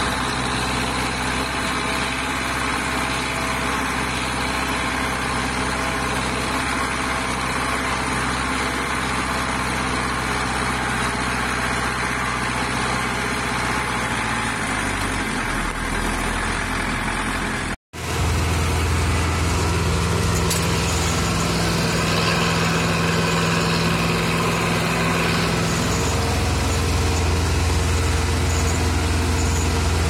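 Zetor tractor engine running, heard close to its vertical exhaust stack, its note dropping lower about 15 seconds in. After an abrupt cut, a Zetor tractor engine pulls steadily, heard from inside the cab, with a deeper, louder note.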